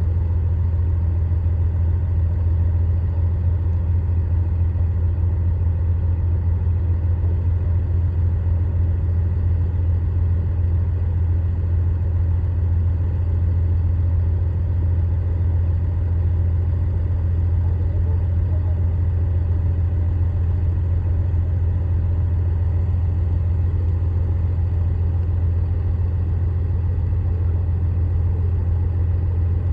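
Heavy diesel engine of earthmoving machinery running steadily at a constant speed, with a strong low hum.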